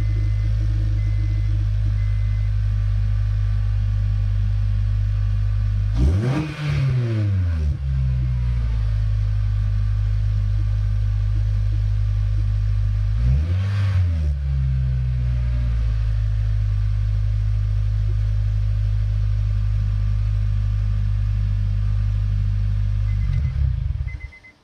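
Honda Accord Euro's 2.4-litre four-cylinder idling through a Buddyclub cat-back exhaust with its silencers removed. It is blipped twice, about six seconds in and again about halfway, each rev rising and falling back quickly to idle. The sound stops shortly before the end.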